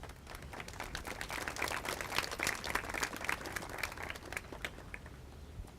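Audience applauding, swelling over the first couple of seconds and dying away about five seconds in.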